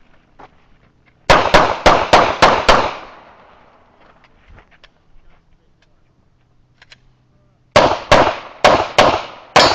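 Glock 17 9mm pistol firing rapidly, in two quick strings of about seven shots each, about five seconds apart.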